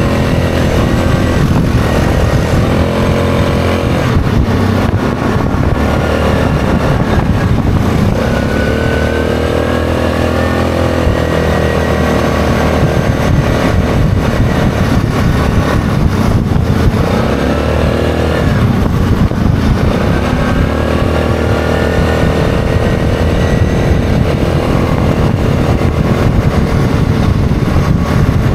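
ATV engine running under way, its pitch rising and falling several times with the throttle, over a steady rush of wind and trail noise.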